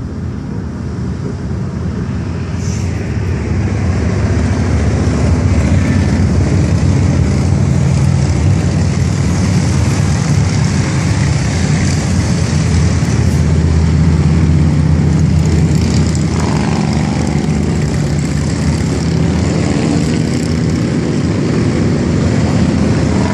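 A procession of cruiser motorcycles, with a few cars among them, riding past one after another, their engines running. The engine sound builds over the first few seconds as the group arrives, then stays loud and steady.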